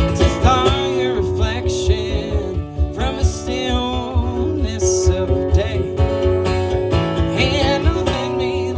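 Country band playing a waltz live, with acoustic guitar and a wavering lead melody over a steady bass pulse.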